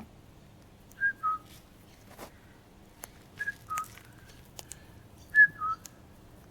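A clear two-note whistle, a high note dropping to a lower one, given three times about two seconds apart, with faint clicks between.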